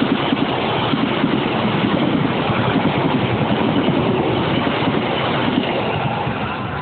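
KA86 Mutiara Selatan's stainless-steel passenger coaches passing at speed close by: a dense, steady rush of wheels on rail that eases as the last coach clears, near the end.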